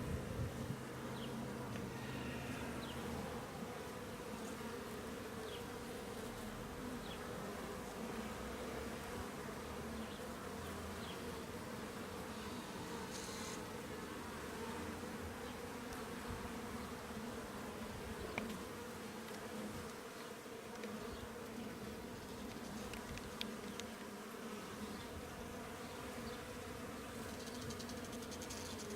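Honey bees buzzing around an opened hive: a steady, even hum, with a few faint clicks scattered through it.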